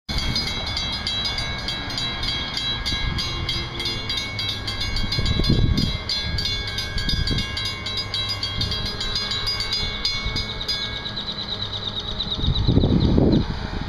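Railroad grade-crossing warning bell dinging rapidly and evenly, stopping about eleven seconds in, over a low rumble.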